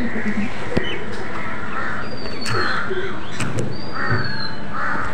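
Crows cawing repeatedly, with a thin falling whistle from another bird a couple of times.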